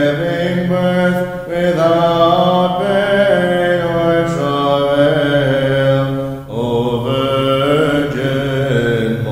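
A man's voice chanting liturgical text in Byzantine style on a steady reciting pitch, with two brief pauses for breath.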